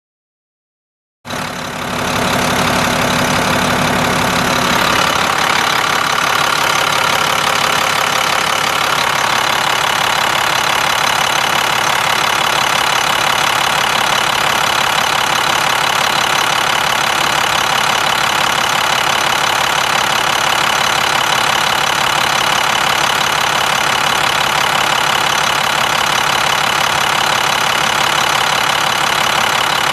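International DT466 7.6-litre inline-six turbo diesel engine of a 2006 International 7400 dump truck idling, heard close up in the open engine bay. The sound cuts in about a second in, then runs steadily.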